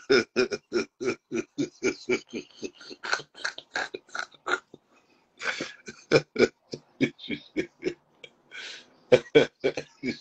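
A man laughing hard in a long fit: fast, evenly spaced bursts of laughter, about four or five a second. It breaks off briefly about halfway, and a breathy intake comes just before a louder run of laughter near the end.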